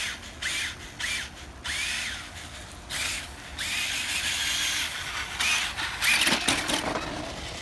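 Electric motor of a remote-control Monster Jam Megalodon toy truck whining in a run of short throttle bursts, each rising and falling in pitch, as it drives through snow. A louder, rougher burst comes about six seconds in.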